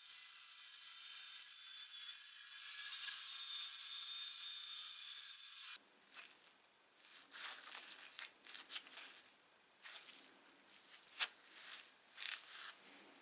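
Bandsaw blade running through a wooden block, a steady high hiss with a faint whine. About six seconds in it gives way to gloved hands handling the rough-sawn wooden blank: scattered rubs, rustles and light knocks.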